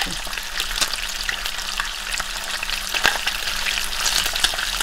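Sardine fillets sizzling in hot olive oil in a nonstick frying pan: a steady crackling hiss. A few sharper clicks come from a fork moving the fish against the pan, the strongest about three seconds in.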